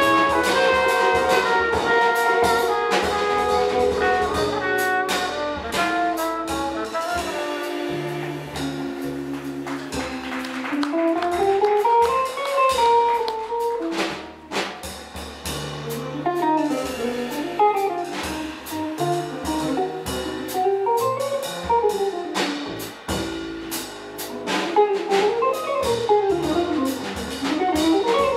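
Live jazz combo playing: upright bass, drum kit, saxophone, a brass horn and electric guitar. Held horn notes open the passage; about ten seconds in, a solo line of fast rising and falling runs takes over, over bass and drums.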